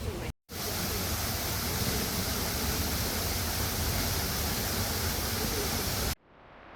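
Park fountain water splashing in a steady, even rush that stops suddenly near the end.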